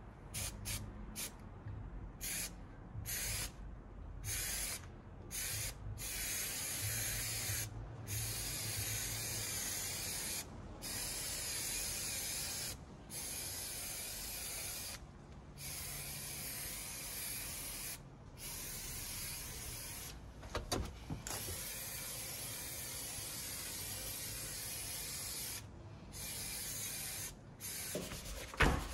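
Aerosol can of spray adhesive hissing in repeated bursts, short ones at first and then longer ones of a few seconds each, as it coats the backs of paper printouts for mounting on chipboard. At the very end there is a brief rustle and rub of paper.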